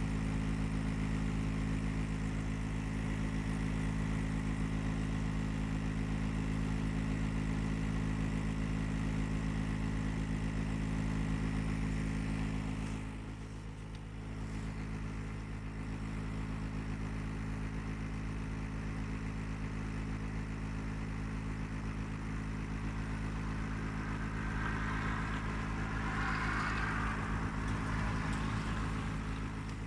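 Gree air conditioner running with a loud, steady low hum made of several even tones, the noise problem the unit has. It dips briefly about halfway through, and a higher rushing noise rises over it for a few seconds near the end.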